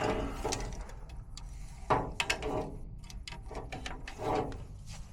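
Clicking and rattling of hand tools and small parts being handled while a replacement furnace fuse is fitted, with a louder knock about two seconds in.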